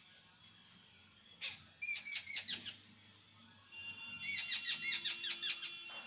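Jungle babblers chattering: two bursts of rapid, harsh, repeated notes, one about two seconds in and a longer one from about four seconds in.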